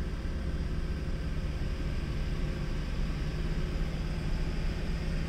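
Diesel engine of a heavily loaded car-carrier truck heard from inside the cab, pulling steadily up a steep climb: a low, even rumble with a steady hum.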